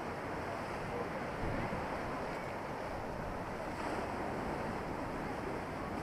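Storm surf breaking against a concrete sea wall and washing up over the promenade: a continuous rush of churning water.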